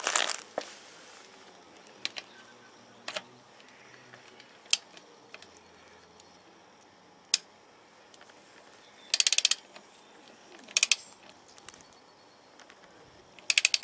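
Ratchet head of a long torque wrench clicking as an M14 locking wheel bolt on a motorhome's alloy wheel is wound in. It gives a few single clicks, then three quick runs of ratchet clicks about nine seconds in, about eleven seconds in and near the end.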